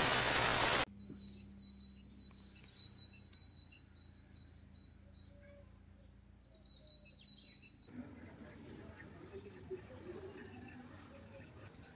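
A burst of loud TV-static white noise that cuts off abruptly about a second in. It is followed by repeated faint high chirps over a low steady hum, which give way to a noisier outdoor background after about eight seconds.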